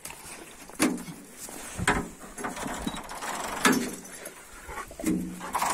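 Wooden kennel door with wire mesh being unlatched by hand, its metal latch clanking and the door rattling in about four sharp knocks.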